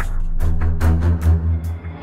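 Ominous, dramatic music with a heavy deep bass and quick percussive hits.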